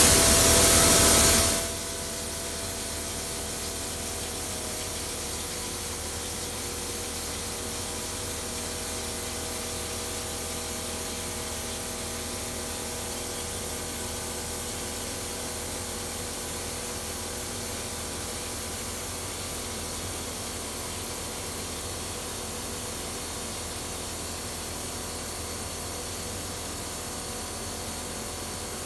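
Compressed-air glaze spray gun hissing: a loud blast for about the first second and a half, then a steady, softer hiss as glaze is sprayed onto a vase in a spray booth.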